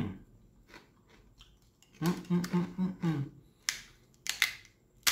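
Crisp cracking of a baked flour-tortilla bowl being broken apart by hand: a few sharp snaps, the loudest near the end. A short stretch of voice comes in the middle.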